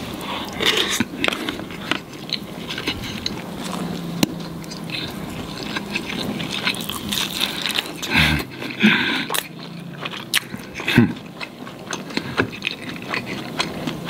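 Close-miked chewing and biting of a mouthful of rice and a piece of fried chicken, with many small, irregular clicks from the mouth.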